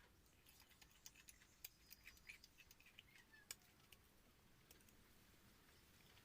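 Near silence, broken by faint scattered clicks and small wet mouth sounds, most of them between about one and four seconds in: quiet chewing and eating of water-soaked rice (pakhala) with curry.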